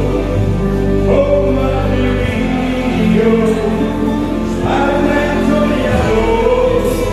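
Live party music with singing over a sustained bass line.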